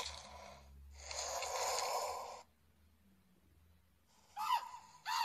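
Animaterra augmented-reality app's animal sound effects: a breathy hissing exhale lasting about a second and a half, then after a pause two short squawking bird calls near the end.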